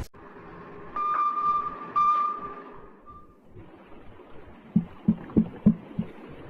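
Two sonar pings a second apart, each a sharp attack ringing out as a steady tone, then five dull knocks in quick succession, about three a second, offered as the banging picked up from the missing Titan submersible.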